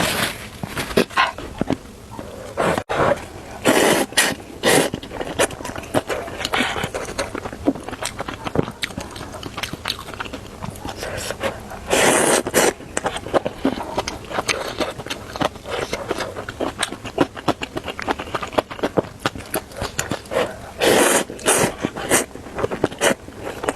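Close-miked eating of instant noodles: repeated slurps, the longest about twelve seconds in and again about twenty-one seconds in, between many small wet chewing and smacking clicks.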